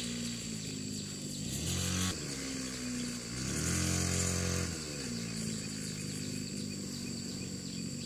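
A small engine running, its speed rising and falling several times, with two spells of higher revs.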